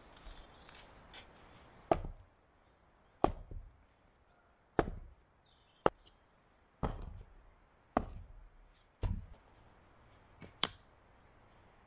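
Repeated chopping blows: about eight sharp strikes roughly a second apart, each trailing off briefly.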